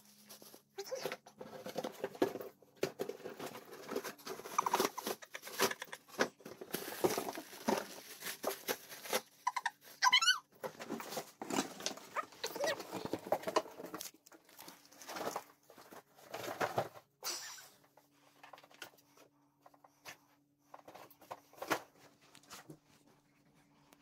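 A malamute rummaging in and shoving a cardboard box, the cardboard rustling, crackling and scraping in irregular bursts that thin out in the last third. There is one short high wavering squeak about ten seconds in.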